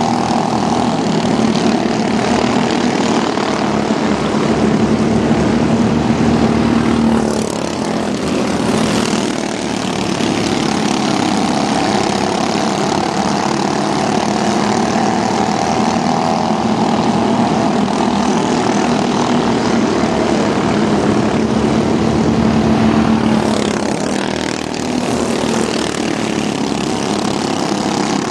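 Engines of several mini stock pickup trucks racing around a short oval, a continuous multi-engine drone. The sound swells and then drops away twice, about sixteen seconds apart, as the pack passes.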